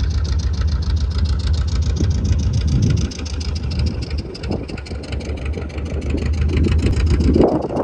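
Motorboat engine running steadily with an even pulsing beat, easing off slightly about three seconds in, with a louder rush of noise near the end.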